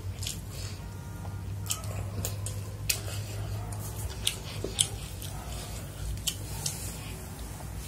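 Close-up eating sounds of chicken fried rice eaten by hand: chewing with wet smacks and scattered sharp clicks, over a low steady hum.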